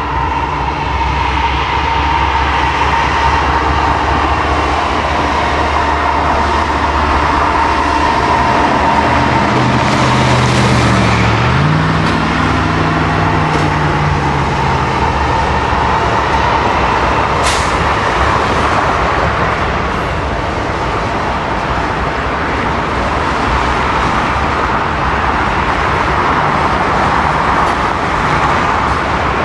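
Freight train passing: diesel locomotive engines running as they go by about ten seconds in, then the cars rolling past in a steady rumble, with one sharp clank a little past the middle.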